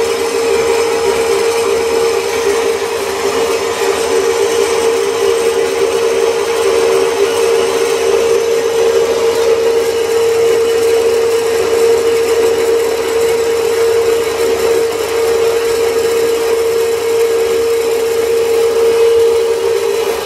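MAFCO Metalmaster horizontal metal-cutting bandsaw running on its newly fitted replacement electric motor, with the blade sawing through a steel rectangular tube. It is a steady machine sound with one strong unchanging note.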